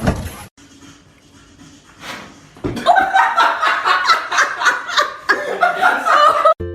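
A sudden loud noise at the start, then after a quieter couple of seconds people laughing hard and continuously until just before the end.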